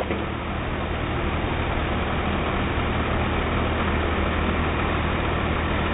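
A heavy vehicle's engine running steadily: a constant low hum under even traffic noise, growing slightly louder.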